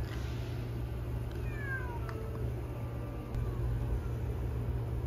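A cat meowing, a few short falling calls about one and a half to two seconds in, over a steady low rumble.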